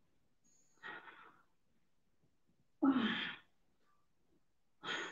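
A woman breathing out hard three times with effort while holding a core exercise, the middle breath the loudest.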